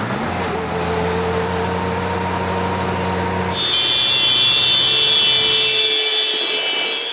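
Race motor vehicles running steadily alongside the cyclists. About three and a half seconds in the sound cuts to a steady high-pitched whine.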